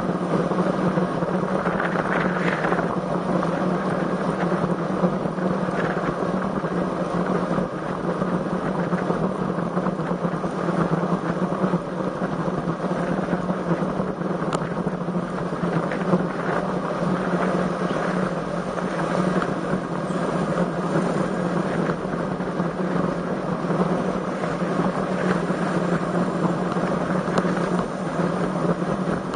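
Steady rushing wind and road noise on a bike-mounted camera's microphone while riding a road bike, with a constant low drone and a few brief gusts.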